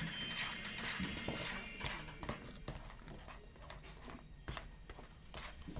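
A utensil knocking and scraping irregularly against a plastic mixing bowl as a thick cream mixture is stirred by hand.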